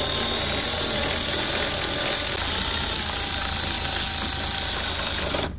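Milwaukee M12 cordless right-angle ratchet running steadily, spinning a socket on a bolt. Its motor pitch wavers briefly a couple of times, and the sound cuts off suddenly near the end.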